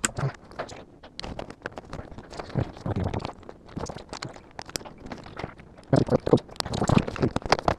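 Irregular clicks and knocks of a car part being handled and fitted back into place, growing into a run of heavier knocks from about six seconds in.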